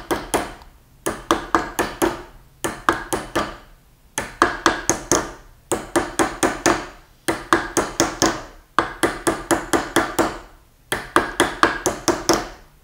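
Creasing hammer striking a copper bangle blank on a Delrin anticlastic stake, about five blows a second in quick runs with short pauses between runs. Each blow leaves a brief metallic ring from the copper. The blows are forming the anticlastic curve along a line around the bangle.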